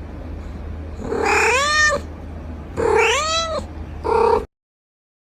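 A cat meowing three times, the first two long calls rising and falling in pitch, the third short, over a steady low hum; the sound cuts off abruptly near the end.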